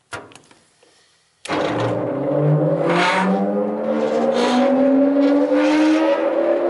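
SAFO DZXA belt-and-disc sander being started: a switch click on its control panel, then about a second and a half in the machine's motor comes on suddenly and runs up to speed, its hum rising slowly and steadily in pitch.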